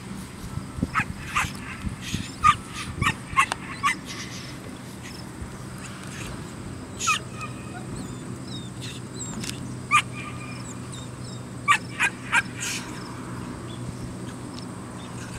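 A young puppy barking and yipping in short, sharp, high-pitched calls, coming in clusters, as it is teased with a rag tug during bite training.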